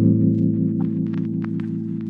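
Background music: a held low chord that slowly fades, with faint light ticks over it.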